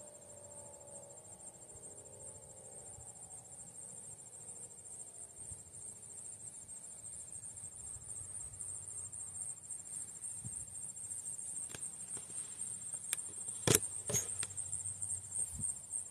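Insects chirring steadily in a high, fast-pulsing band, while the last faint tone of a siren dies away over the first few seconds. Two sharp clicks come near the end.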